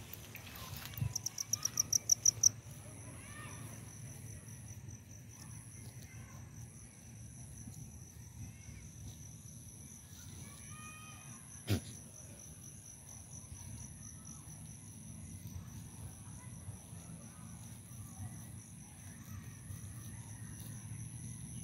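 Insects trilling in the grass: a steady, high, continuous buzz, with a louder pulsing call for about a second and a half near the start. A single sharp click about halfway through.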